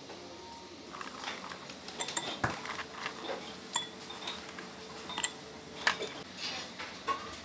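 Dishes, cutlery and glasses clinking and clattering as tableware is handled, a series of irregular sharp clinks with the loudest about four and six seconds in.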